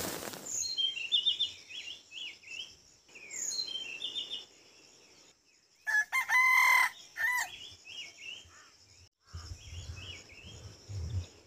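A rooster crows once, about six seconds in, over small birds chirping in short repeated phrases.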